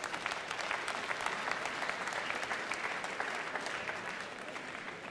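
Boxing arena crowd applauding, a dense clatter of many hands clapping that dies down near the end.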